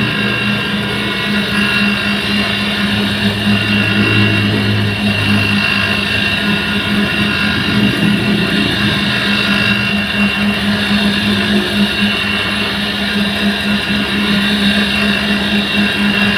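Camshaft copying machine running steadily: a constant motor hum with a steady high whine over it.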